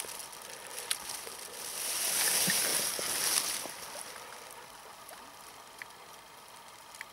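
Shallow river water sloshing and splashing as a grayling is released from the hand, loudest about two to three seconds in, then the quieter steady lapping of the river's edge.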